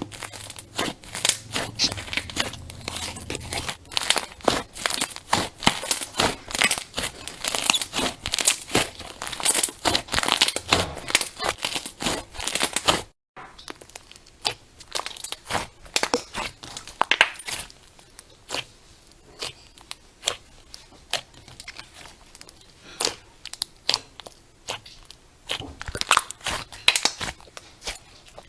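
Crunchy slime being squeezed and pressed, giving a dense run of crackles and crunches. After a brief cut about halfway through, the crackling goes on quieter and sparser.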